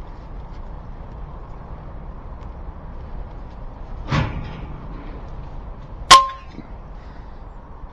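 A single shot from an FX King .22 FAC pre-charged air rifle about six seconds in: a sharp crack with a brief ringing tone after it. About two seconds before the shot there is a shorter, softer noise.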